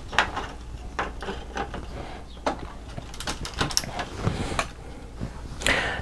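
Irregular small plastic clicks and scrapes as a RAMesses 2 MB chip RAM board is pushed into place over the Agnus chip on an Amiga 500 motherboard.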